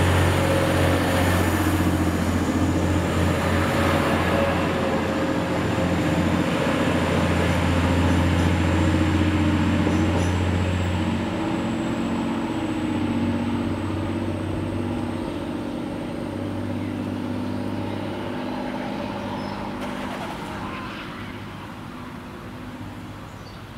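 TransPennine Express Class 185 diesel multiple unit's underfloor engines running with a steady low hum and a thin high whine, growing fainter over the second half as the train draws away.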